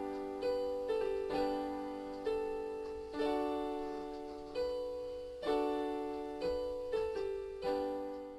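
Slow piano or keyboard music: chords struck about once or twice a second, each note ringing and fading.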